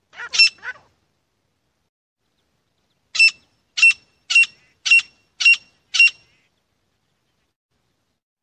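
Grey francolin calling: a short note just after the start, then, after a pause of about two seconds, a run of six loud, high-pitched notes about half a second apart.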